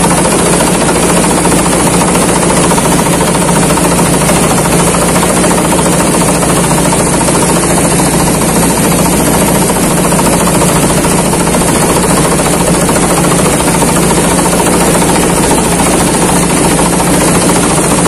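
Thai Seng Yont rice combine harvester working at full run while cutting rice: its engine and header machinery make a loud, steady drone with a continuous rapid mechanical clatter.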